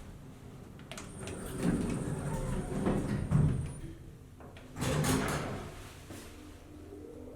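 Old elevator's sliding doors running along their track, with clicks about a second in, a faint high whine for a couple of seconds, and a louder bump about five seconds in.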